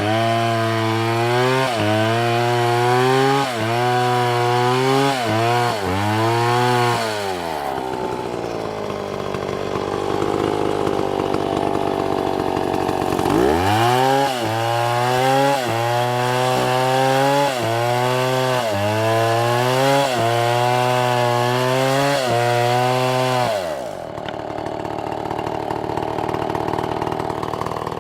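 Chainsaw at high revs cutting wood, its engine pitch dipping and recovering about every second and a half as the chain bites. About eight seconds in it falls to a rougher, lower sound, then revs up again some five seconds later. Near the end it drops back to a quieter idle.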